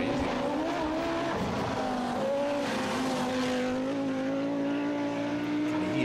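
Group B rally car's engine running hard along a rally stage, its note mostly steady with small rises and dips in pitch.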